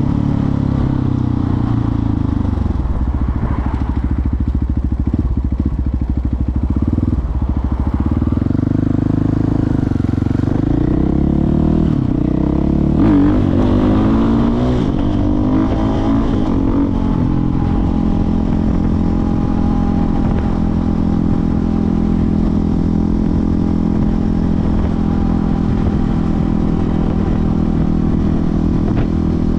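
KTM 450 EXC dirt bike's single-cylinder four-stroke engine under way, its pitch rising and falling repeatedly over the first half, then running at a steady pitch for the rest.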